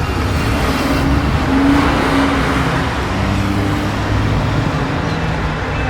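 A car driving past with its engine running, loudest about two seconds in. Its engine note then falls lower in steps.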